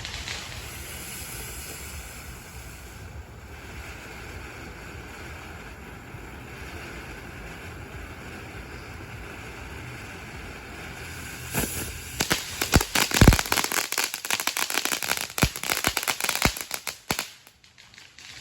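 A lit Desert Blitz consumer firework: a steady hiss for about eleven seconds, then a rapid string of sharp crackling bangs and pops for about five seconds that stops shortly before the end.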